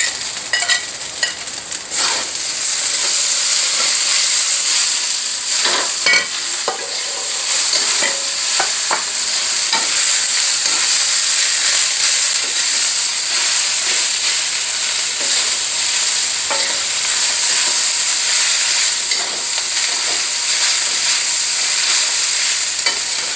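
Fried rice with beef and kailan sizzling in a metal wok while a metal spatula stirs and tosses it, with scrapes and knocks of the spatula against the pan. The sizzle gets louder about two seconds in.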